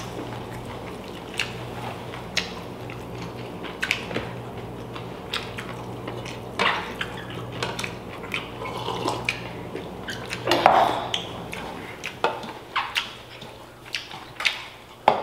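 Spoons and hands clinking and tapping against ceramic bowls and plates during a meal, in scattered short knocks, over a low steady hum that stops about twelve seconds in.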